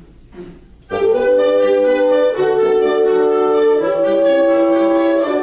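Woodwinds and French horns entering together about a second in, playing sustained chords that change twice.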